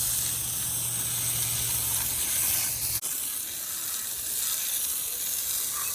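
Steady high-pitched outdoor background hiss with no distinct event. A low hum runs under it for the first three seconds and cuts off abruptly.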